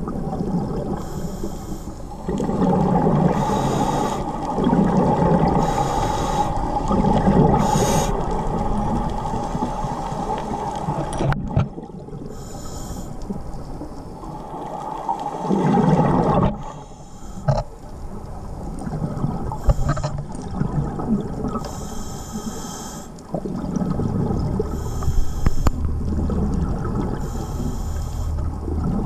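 Underwater sound of scuba diving: regulator breathing, with rushes of hiss and gurgling exhaled bubbles every couple of seconds, over a steady hum in stretches.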